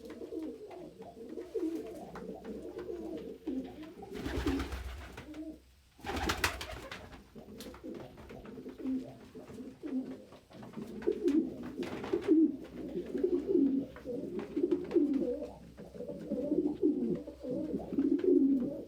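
Several domestic pigeons cooing continuously, overlapping low coos, with two brief rushing noises about four and six seconds in.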